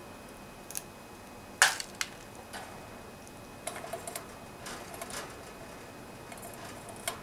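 African grey parrot handling and chewing a stick of cassia cinnamon bark: scattered sharp clicks and crunches of beak on bark, the loudest about one and a half seconds in. Further clusters of clicks follow as it reaches down toward the cage and its steel bowl.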